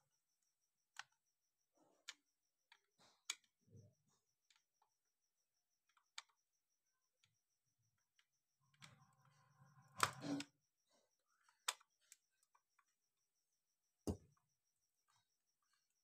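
Faint, scattered clicks and knocks of a hair dryer's plastic housing and parts being handled, with a louder clatter about ten seconds in and a sharp knock a few seconds later.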